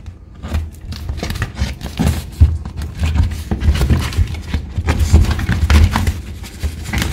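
A dog nosing and pushing at a paper sheet taped over a doorway to get at treats in its holes: paper rustling and scraping, with many small knocks and thumps.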